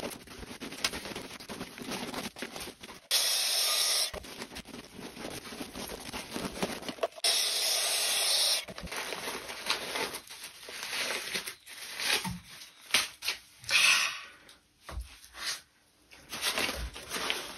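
A deflated plastic water ball being worked loose and pulled out of a hard shell of jute cord stiffened with dried wallpaper paste: continuous rubbing, crinkling and scraping of the plastic against the glued cord. There are two louder hissing scrapes, each about a second long, around three and seven seconds in.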